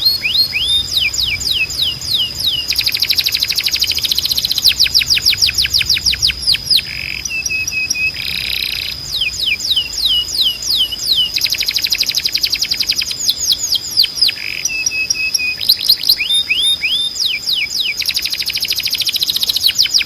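Timbrado canary singing: rolling trills made of fast runs of repeated downward-sweeping notes, broken by brief pauses and a few short flat whistled notes. A steady high whine runs underneath.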